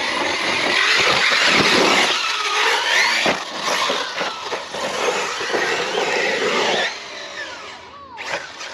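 Arrma Fireteam 6S brushless RC car being driven hard: the electric motor's whine sweeps up and down with the throttle over a steady hiss. It drops off sharply about seven seconds in, and a short falling whine comes near the end.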